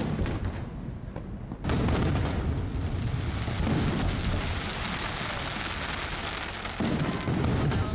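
Fireworks display: a loud burst about a second and a half in, followed by a dense crackling hiss from the exploding shells that lasts several seconds, then another burst near the end.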